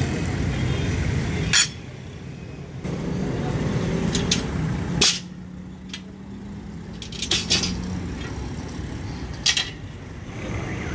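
Steel leaf-spring leaves clanking and clinking against each other and the concrete as they are handled, a handful of separate sharp metal knocks, over a steady low rumble of traffic.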